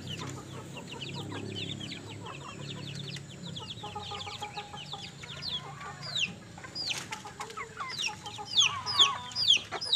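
Birds chirping: many short chirps, each falling in pitch, coming thicker and louder over the last couple of seconds.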